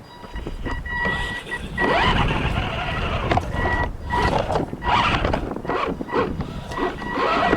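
Arrma Granite 4x4 electric RC truck pulling away about two seconds in: motor whine and tyre noise surging up and down with the throttle. It is preceded by a steady electronic beep-like tone.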